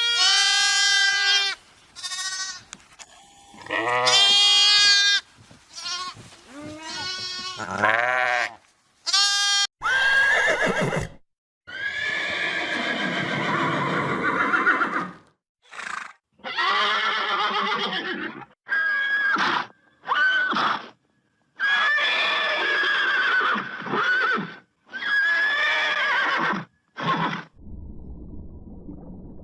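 A series of farm-animal calls, one after another: short wavering bleats at first, then longer, wavering calls. Near the end the calls give way to a low, muffled gurgling noise.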